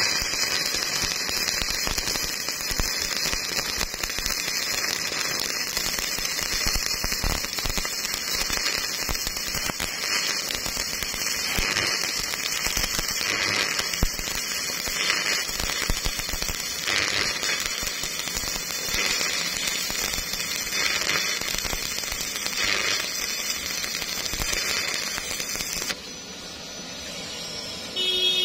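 Stick-welding arc crackling steadily as the electrode lays a bead into a deep, narrow V-groove in steel plate. The arc breaks off about 26 seconds in.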